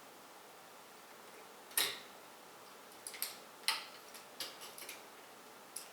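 Sharp clicks and light taps of hard parts being handled as a CPU is seated in a motherboard socket: one loud click a little under two seconds in, then a quick run of smaller clicks and a last one near the end.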